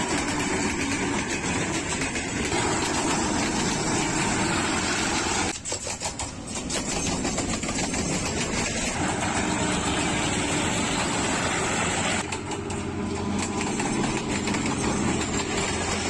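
Pakistan Railways diesel-electric locomotives passing slowly at close range, the diesel engines running steadily over the noise of wheels on rail. The sound shifts abruptly about five and a half and twelve seconds in, where separate recordings are cut together.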